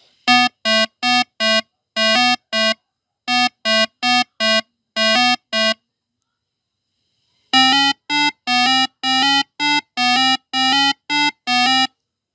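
Vehicle horn honking in rhythmic patterns of short and slightly longer blasts, all at the same harsh pitch: about a dozen blasts, a pause of about two seconds, then about a dozen more.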